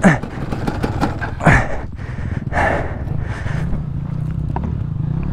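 Dirt bike engine idling with a steady low note, under the rider's hard, heavy breathing: loud panting exhales about every second or so, strongest in the first three seconds.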